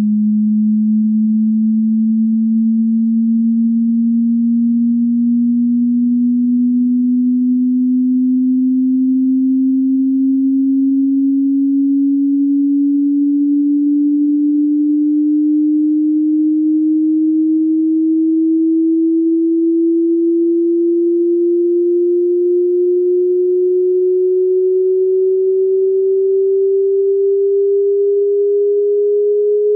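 A single pure sine-wave test tone rising slowly and smoothly in pitch by about an octave, at a steady loudness. It is the low part of a hearing-test frequency sweep that climbs from 80 hertz toward 18 kilohertz.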